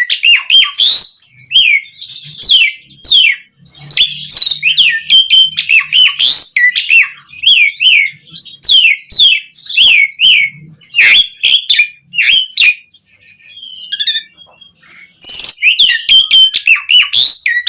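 Asian pied starling song: a rapid, loud string of chirps, whistled sweeps and harsh notes, pausing briefly about 13 seconds in before starting again.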